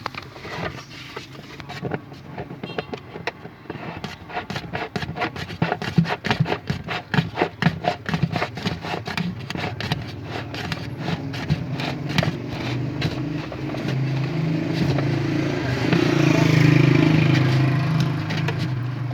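Rapid, regular metallic clicking and scraping as a fastener holding the washing machine's spin-dryer motor is tightened by hand. About twelve seconds in, a steady engine-like hum builds up and becomes the loudest sound.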